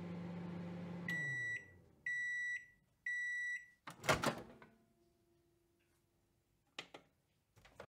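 Microwave oven running with a low hum that winds down about a second in, then three beeps about a second apart, each about half a second long: the end-of-cycle signal. About four seconds in the door opens with a latch clunk, and two faint clicks follow near the end.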